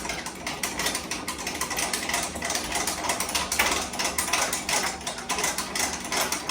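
Rapid, irregular mechanical clicking and rattling, like a ratchet, as a vending machine is being moved into position.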